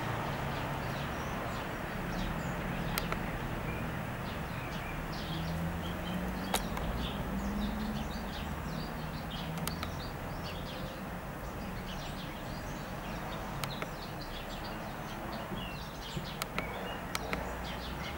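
Small birds chirping repeatedly over a steady low hum, with a few sharp clicks scattered through.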